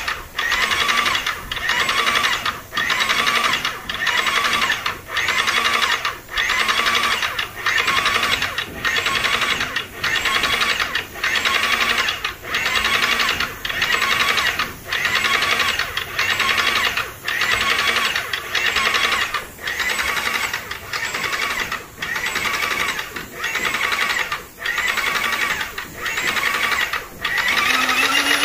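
Vonder MPA1010 electric airless paint sprayer pump running while paint is sprayed, labouring in a regular pulse about four times every three seconds. Near the end the pulsing gives way to a steady hum that rises in pitch.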